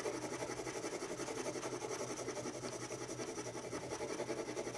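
Graphite pencil shading on Bristol paper in quick back-and-forth strokes, a faint steady scratching with an even rhythm. The pencil is pressed hard to make the graphite glare.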